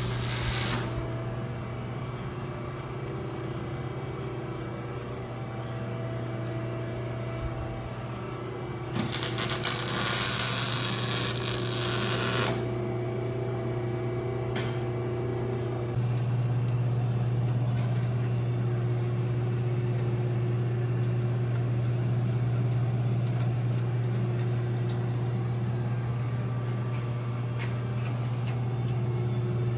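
Muffler shop work noise: a steady low hum, with a loud hissing burst lasting about three seconds around nine seconds in.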